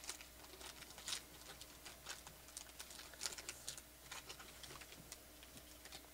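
Faint crinkling and crackling of a foil trading-card pack wrapper being torn open and peeled back, in quick irregular small clicks.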